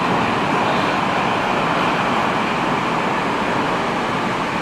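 A Metrowagonmash 81-765.4 "Moscow-2019" metro train running at speed through a tunnel, heard from inside the car: a steady, loud rushing noise of wheels on rail and air in the tunnel.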